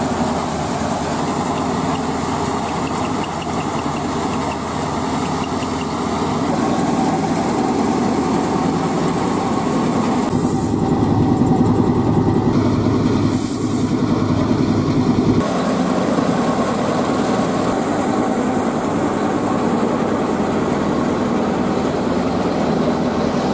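A tractor's diesel engine running steadily under load, driving a paddy thresher, with the thresher's drum and blower adding to the drone. The sound shifts abruptly several times.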